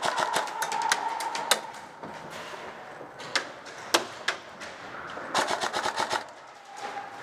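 Airsoft guns firing: a rapid burst of shots that stops about a second and a half in, a few scattered single shots, then another short rapid burst about five seconds in.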